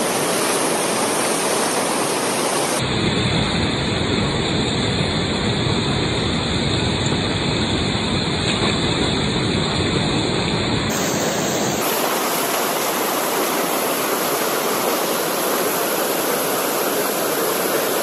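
Fast mountain river rushing over rocks in white-water rapids: a loud, steady wash of water noise that changes character abruptly about three seconds in and again about eleven seconds in.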